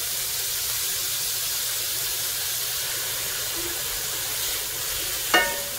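Diced onion and celery sizzling in avocado oil in a stainless steel pan over low-medium heat: a steady, even frying hiss.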